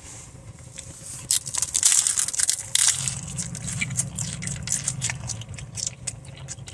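Crunching of a crisp hard taco shell being bitten and chewed close to the microphone. The loudest crunches come in the first few seconds of the bite, then lighter crackles as the chewing goes on.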